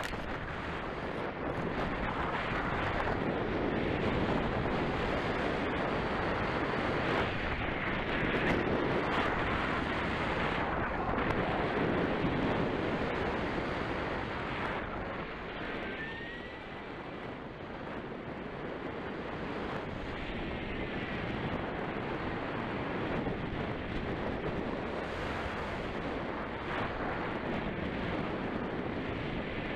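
Airflow rushing over the microphone of a camera riding on a 1/8-scale Nemere glider in flight: a steady wind rush that grows louder in the first half and eases for a moment about halfway through.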